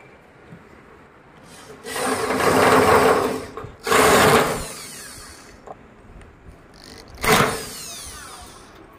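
Cordless drill-driver spinning screws in the perforated metal grille of a speaker cabinet, in three runs: a long one about two seconds in, a shorter one right after it, and a brief one near the end.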